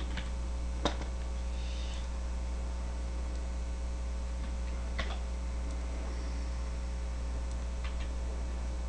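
Steady electrical mains hum, with a few sharp clicks about one second in, about five seconds in and near the end.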